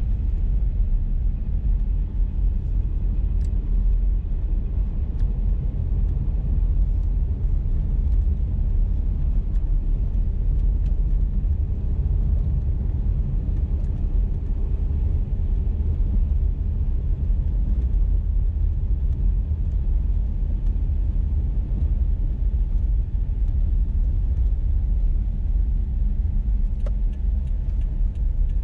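A car driving at steady speed on a snowy road: an even, low rumble of tyre and engine noise. A few faint ticks come in near the end.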